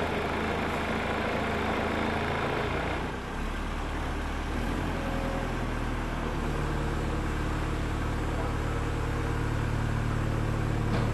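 Hydraulic transport frames carrying a yacht through the factory, their pump motors running with a steady low hum. A broader hiss drops away about three seconds in, and the hum shifts pitch around three and again around six seconds in.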